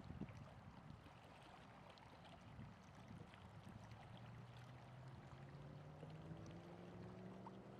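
Faint outdoor ambience with a low rumble, and from about halfway through a distant engine's hum slowly rising in pitch.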